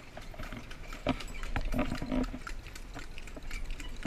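Horse-drawn cart moving along a paved road: irregular clops and rattles, with a low, throaty vocal sound from about one second in, lasting about a second.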